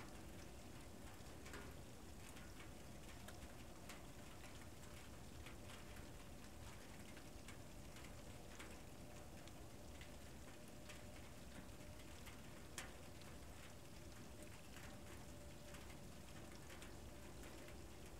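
Near silence: the faint steady hiss and hum of a trail camera's microphone, with scattered soft ticks and one sharper click about thirteen seconds in.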